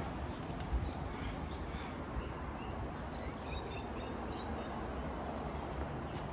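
Outdoor ambience: small birds give scattered short chirps, mostly in the first half, over a steady low background noise.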